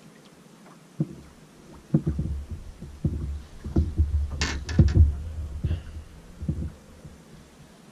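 Irregular dull thumps and knocks on a boat's carpeted front deck as a small fish is landed and handled, with a sharper clatter a little past the middle.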